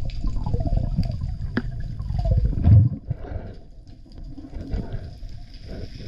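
Water rushing and gurgling, heard underwater as a freediver dives down, loudest a little over halfway through the first half, then settling to a quieter hiss with scattered faint clicks.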